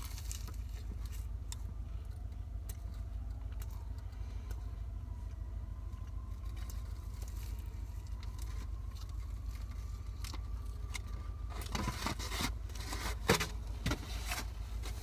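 Steady low rumble inside a car cabin, with a faint wavering tone in the middle stretch. A few short rustles and clicks come near the end.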